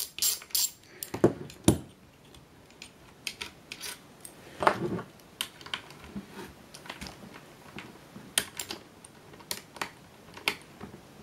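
Small socket ratchet clicking a few times while backing out 7 mm bolts, then scattered light metallic clicks and clinks as the ratchet and steel sockets are handled. The loudest clink comes about five seconds in.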